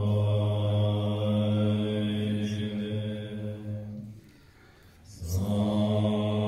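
Tibetan Buddhist monks chanting a mantra together in low, steady held tones. The chant breaks off for about a second around four seconds in, then resumes.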